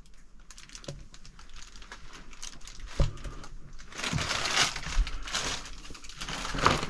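Crinkling and crunching of paper and debris being disturbed, with scattered small clicks and a few dull thumps; the rustling grows denser and louder about four seconds in.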